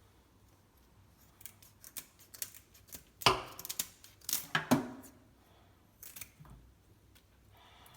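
Barracuda being cut up for frying: a series of irregular sharp snips and clacks, loudest a little past three and again past four and a half seconds in.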